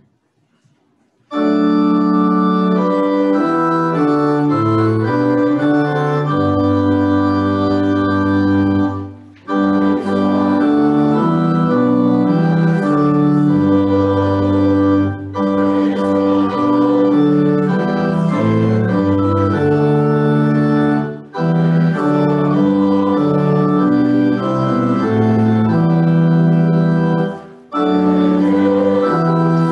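Organ playing offertory music: slow sustained chords over a moving bass line. It starts about a second in and drops out briefly between phrases three times.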